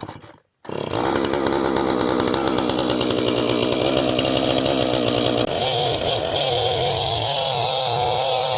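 Husqvarna two-stroke chainsaw engine starting up under a second in and then running steadily and loud, its pitch shifting upward about five and a half seconds in.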